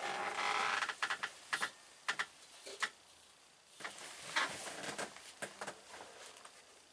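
Small fire of dry pine cones catching: a brief hiss in the first second, then scattered crackles and snaps.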